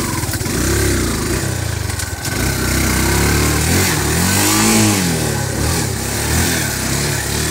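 Yamaha YTX 125's single-cylinder four-stroke engine running under a varying throttle, its speed rising and falling again and again, with one strong rev up and back down about four to five seconds in.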